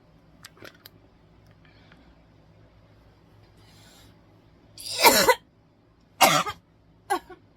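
A person coughing: three hard coughs, the first two loud and the third shorter and weaker, starting about five seconds in after a faint intake of breath.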